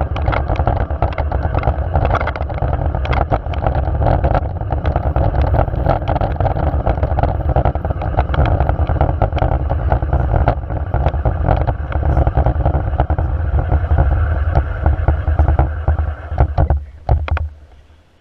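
Loud, steady rushing noise, strongest in the low end and peppered with many small clicks and rattles. It starts abruptly and cuts off abruptly about a second before the end.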